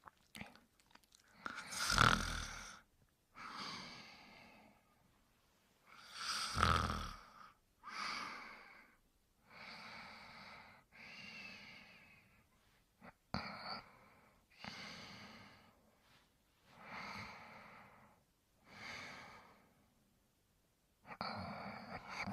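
Snoring in sleep: slow, regular breaths about every two seconds, the two loudest about two and seven seconds in.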